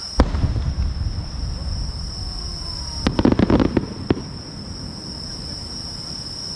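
An aerial firework shell bursts with a sharp bang followed by a long low rumble, then about three seconds in a quick cluster of crackling pops. Insects trill steadily in the background.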